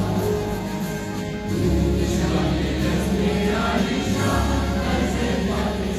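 A national anthem playing over a cricket stadium's public address: choral singing over slow, held bass notes that change every second or two.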